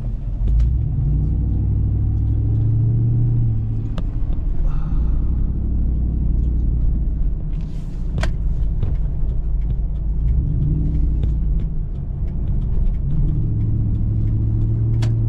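Engine and road rumble heard from inside a vehicle's cabin while driving, steady and low, swelling slightly a couple of times, with a few sharp clicks.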